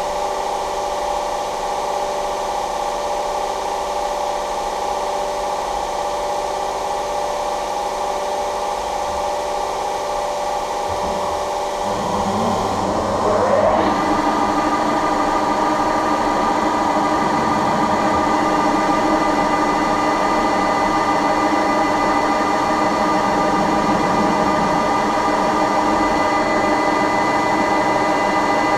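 KZh1844 thread-rolling machine running with a steady, many-toned hum. About 12 seconds in, its pitch rises over a couple of seconds, and it settles into a slightly louder, higher steady run with a thin whine on top.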